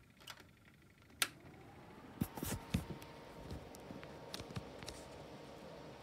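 Igenix 30-inch tower fan switched on with a click, its motor spinning up to a steady whir with a faint hum on medium speed. A few knocks and taps follow about two seconds in.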